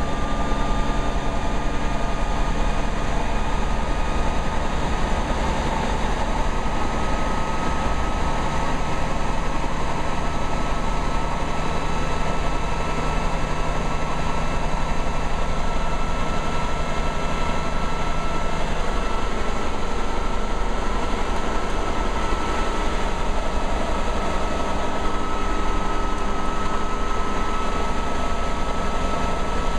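Bell 47G-4A helicopter running, heard from the cockpit: its Lycoming VO-540 piston engine and main rotor make a loud, steady drone. The pitch creeps slowly upward as engine and rotor RPM are brought up into the green operating range.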